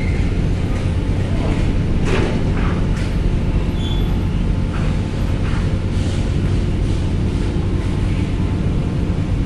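Steady low drone of a docked ferry's running machinery, with a few metallic clanks about two to three seconds in and again around five to six seconds as a sedan drives off the ship and over the steel loading ramp.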